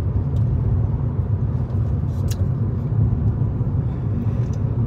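Steady low rumble inside a car cabin, with a few faint clicks of bubble gum being chewed.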